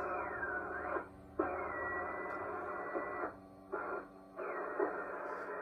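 An Atwater Kent Model 10 breadboard radio plays a broadcast with a thin, narrow sound. It cuts out briefly three times while the tuning dial is turned, and whistles glide down and up in pitch over the program.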